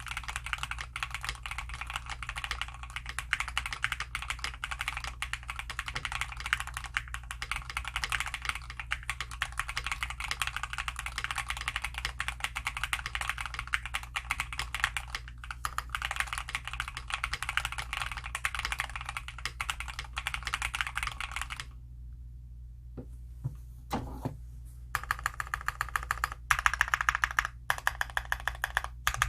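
Fast, continuous typing on a bakeneko65 custom mechanical keyboard with WS Aurora Clear linear switches lubed with 205g0 and PBT keycaps, with a crunchy keystroke sound. About three-quarters of the way through the typing stops for a few seconds, leaving only a few single knocks, then resumes with louder strokes.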